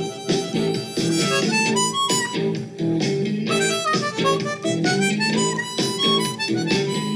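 Blues harmonica, cupped in the hands, playing a run of short, shifting notes over a steady rhythmic backing that includes guitar.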